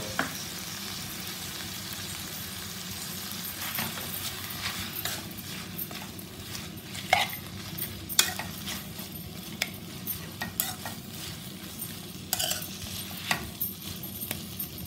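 Steel spoon stirring gotu kola leaves into frying onion, tomato and dal in a metal pan over a steady sizzle, clinking against the pan every second or so. The greens are wilting in their own moisture, with no water added.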